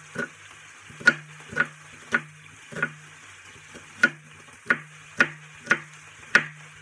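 Chef's knife chopping an onion on a wooden cutting board: about ten sharp knocks of the blade on the board, roughly two a second, with a short pause midway. Under them is a faint sizzle of beef browning in the pan.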